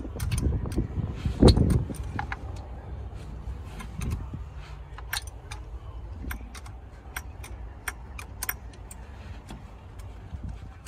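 A metal spanner clicking and clinking against bolts and engine parts as it works a fastener loose, in short irregular taps, with a couple of heavier knocks in the first two seconds.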